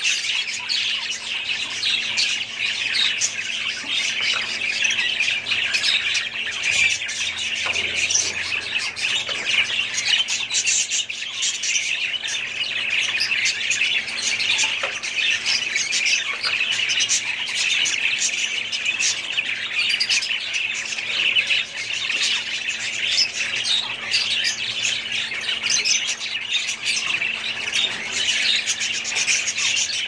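A colony of budgerigars chattering continuously, many birds at once: a dense, unbroken mix of warbling chirps and squawks.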